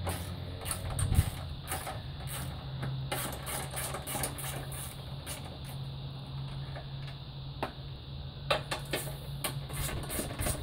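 Hand ratchet wrench clicking in quick runs as the 13 mm bolts of a fender-to-front-end bracket are backed out, with a sharper knock about a second in. A steady low hum runs underneath.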